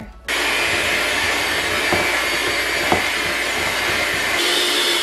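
Handheld electric mixer switched on about a third of a second in, then running steadily with a whirring motor as its beaters whip cream cheese, peanut butter and powdered sugar in a stainless steel bowl. There are a couple of short knocks of the beaters against the bowl, and the tone shifts slightly near the end.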